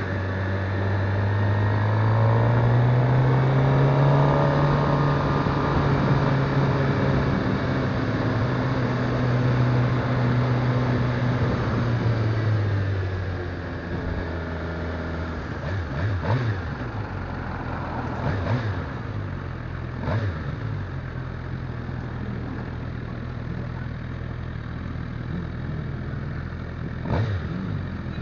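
Motorcycle engine under way, its pitch rising over the first few seconds and holding steady, then dropping back and running quieter about halfway through, with wind and road noise throughout. A few short knocks come in the second half.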